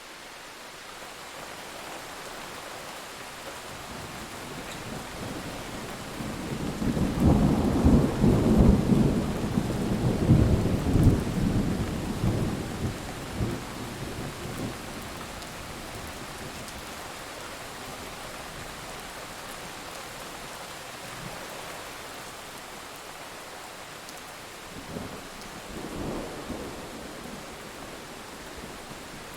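Steady rain with thunder: a long rolling rumble swells up about a quarter of the way in and dies away over several seconds, and a shorter, fainter rumble follows near the end.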